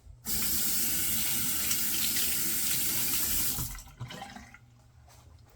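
A sink tap turned on, water running hard into the basin for about three and a half seconds, then shut off, followed by a few faint knocks.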